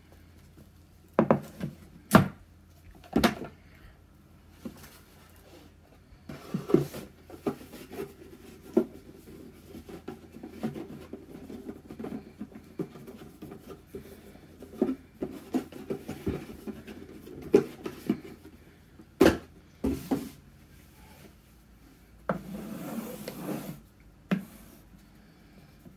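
Hands handling a wooden pen box on a tabletop: scattered sharp knocks as it is set down and shifted, with rubbing and a brief rustle near the end as the cord is handled.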